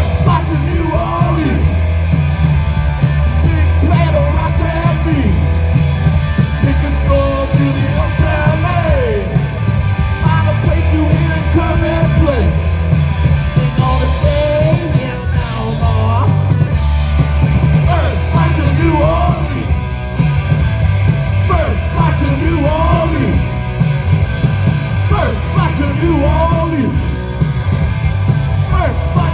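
Loud live heavy rock band playing: pounding drums, distorted electric guitar and bass through amplifiers.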